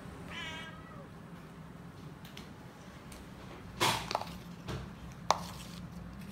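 A cat meows once, briefly, about half a second in. Then clear plastic food bowls knock and clatter on the tiled floor as they are set down, with a sharp click about five seconds in.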